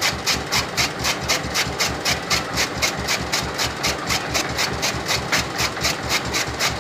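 A tractor engine running while a tractor-driven chaff cutter chops fodder. Together they make an even, rapid clatter of about five strokes a second over a steady engine rumble.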